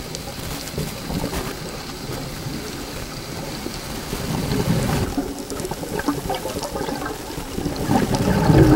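Scuba diver's breathing heard underwater: the regulator and gurgling exhaled bubbles over a low rumble. The bubbling swells about halfway through and again near the end, where a short wavering tone comes in.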